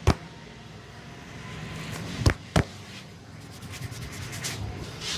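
Barber's hands slapping during a head and body massage: a sharp slap just after the start and two more in quick succession a little past two seconds in. Hands rub over skin between the slaps.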